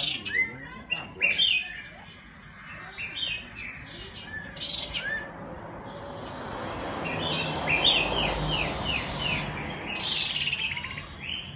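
Common iora of the black-headed form singing: quick runs of short, clear whistled notes, with a run of falling notes past the middle. A low background rush swells and fades under the song around the middle.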